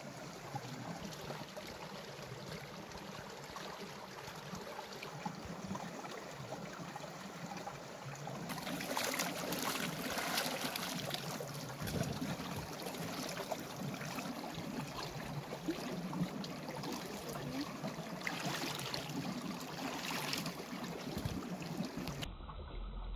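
Shallow stream of clear water running over stones beside ice, a steady rush and trickle. From about eight seconds in it is louder and brighter, heard close to the flowing water. Near the end it changes abruptly to a duller sound.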